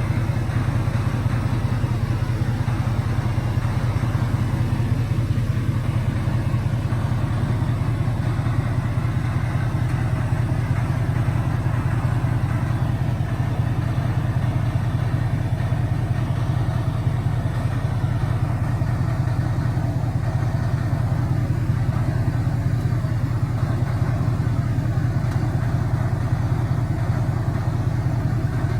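2018 Ford F-150 pickup's engine idling steadily, a low even rumble with no revs.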